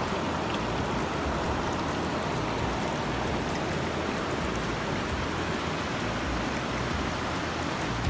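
Steady rush of a mountain stream's water flowing over rocks.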